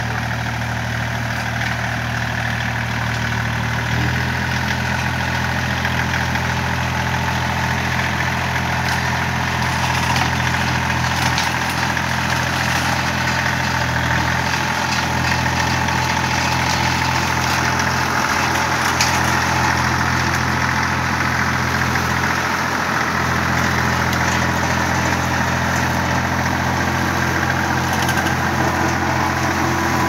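Compact tractor engine running steadily under load while driving a PTO flail mower (SICMA TA) through heavy weeds. The engine note steps up slightly about four seconds in, and the low hum dips briefly a few times.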